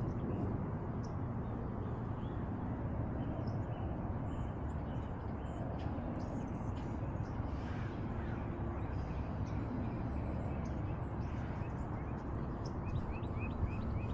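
Steady low rumbling noise from a collar-worn cat camera as the cat moves, with faint bird calls and a crow starting to caw near the end.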